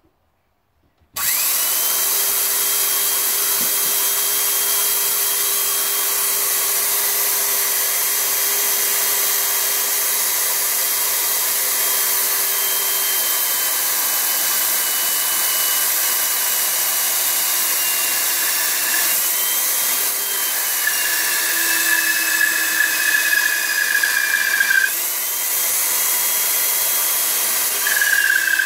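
Old Craftsman corded hand drill in a drill press stand, starting abruptly about a second in when it is plugged in with its trigger held down, then running very loud with a steady high whine. From about two-thirds of the way through, the bit cutting into a steel bracket adds a shrill squeal that comes and goes.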